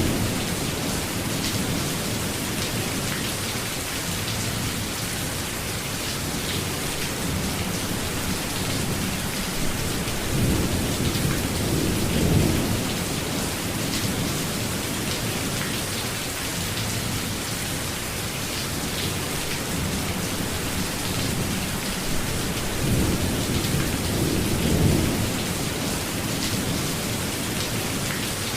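Steady heavy rain hissing, with low thunder rumbles that swell and fade a few times, loudest about twelve seconds in and again near twenty-five seconds.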